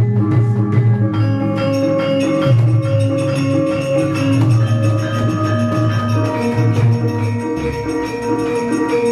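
Javanese gamelan playing: metal keyed instruments ring out a repeating melody over low sustained notes.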